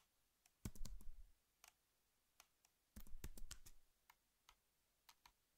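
Faint computer mouse clicks: two short clusters about a second in and about three seconds in, with a few single clicks between.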